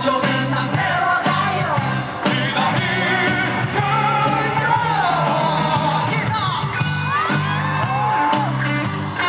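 Live rock band playing with a sung lead vocal over drums, electric guitar and keyboard, the voice gliding and wavering on held notes.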